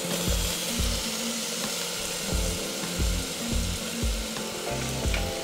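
Beef satay skewers sizzling in their marinade on a hot teppanyaki griddle under a stainless-steel dome cover, a steady hiss. Background music with a steady low beat runs underneath.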